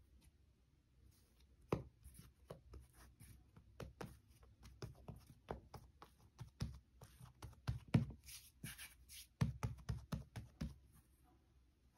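Hands patting and pressing a ball of soft yeast dough flat on a floured silicone baking mat: a run of soft taps and thuds starting about two seconds in, the strongest pats near the end.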